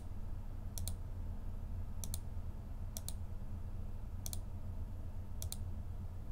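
Computer mouse button clicked five times, about a second apart, each click a quick press-and-release pair, while points are placed with Blender's knife tool. A steady low hum runs underneath.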